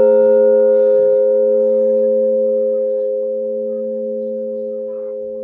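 Large church bell ringing on after its last strike: a few low tones hold and fade slowly, the higher overtones already gone, with no new strike.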